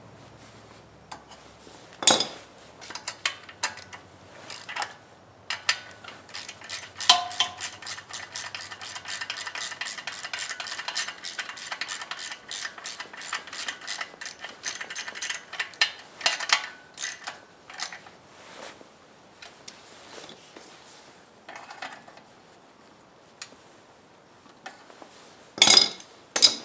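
Metal hand-tool work on a small engine while the ignition coil bolts are tightened: sharp metallic clanks about two seconds in and near the end, and a long run of rapid ratchet-like clicking in the middle.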